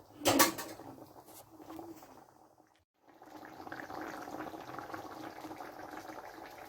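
A sharp clink just after the start, then, following a brief cut, thick rice porridge (arroz caldo) bubbling and popping steadily at the boil in a pot.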